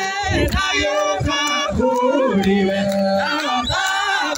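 A crowd of worshippers singing a worship song together in many voices, with hand clapping.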